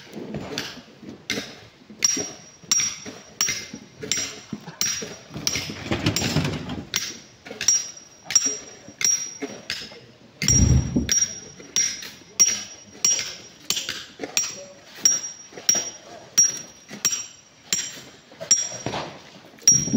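Steady hand hammering on rock, about three blows every two seconds, each with a short metallic ring. One heavier, low thud comes about halfway through.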